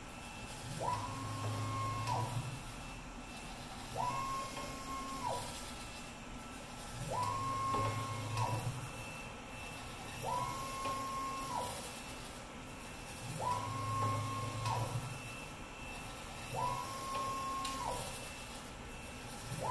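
Vertical wall printer's print-head carriage travelling up and down its rail. Its motor whine rises, holds steady for about a second and falls away on each pass, about once every three seconds, with a low hum under every other pass.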